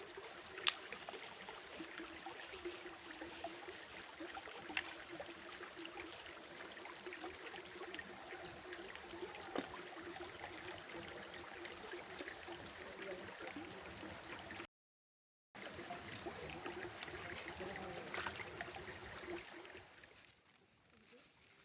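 Stream water flowing and gurgling, with a few sharp ticks over it. The sound cuts out for a moment about two-thirds through and drops away near the end.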